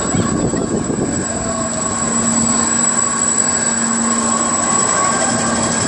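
Spinning-disc fairground thrill ride running: a steady, loud mechanical rumble from its drive and rotating platform. A low motor hum holds from about a second in until near the end.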